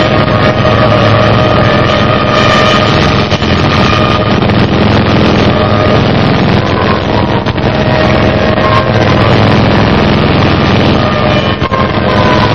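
Loud, steady engine-like drone with held tones over it: the cartoon buzzing of the wasp swarm, made to sound like a squadron of aircraft engines.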